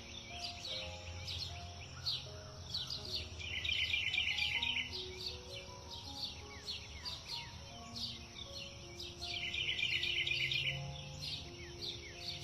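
Songbirds chirping and singing, with two bouts of rapid trilling about three and nine seconds in, over soft background music of slow held notes.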